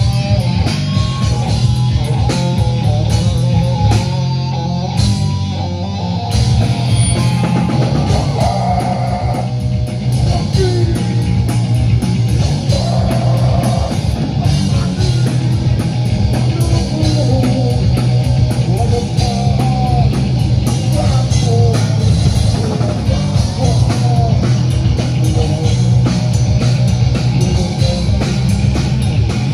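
Live heavy metal band playing loud: distorted electric guitar riffing over bass and a drum kit, as heard from the audience floor. The low end drops out for about two seconds near the start, then the full band comes back in.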